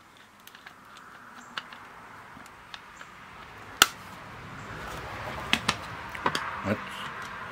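Handling noise from a small plastic portable cassette recorder being turned over and put down on a workbench: light clicks and taps, with one sharp knock nearly four seconds in and a few more knocks later on. A steady hiss grows slowly louder behind them.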